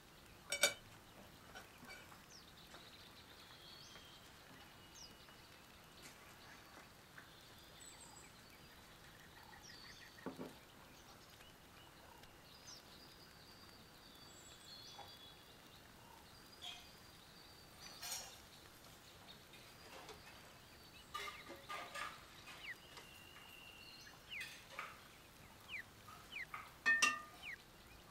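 Quiet rural ambience with birds chirping now and then, and scattered knocks and clinks of dishes on a wooden table. There is a sharp knock about half a second in and a cluster of clinks near the end.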